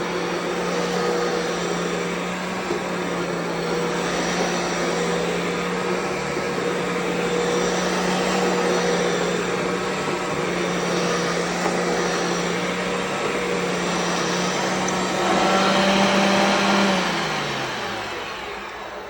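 Hoover Concept Two Electronic upright vacuum cleaner running steadily on carpet with a constant motor whine. Near the end it is switched off, and the whine falls in pitch as the motor spins down.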